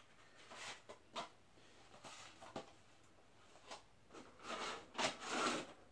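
Handling noises: a few scattered light clicks and knocks of items being moved around a tabletop, then a longer, louder rustle of packaging near the end.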